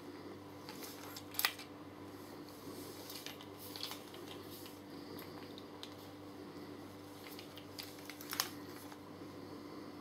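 Quiet tool work on a microwave oven's metal casing: faint clicks and taps of a screwdriver at its screws, with two sharper clicks, one about a second and a half in and one near the end, over a low steady hum.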